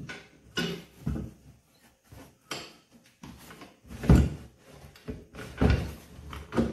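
A steel gas-tank hold-down strap being handled and set over a riding mower's plastic gas tank: a series of irregular clunks and knocks as the metal bracket and tank are shifted into position, the heaviest two about four and six seconds in.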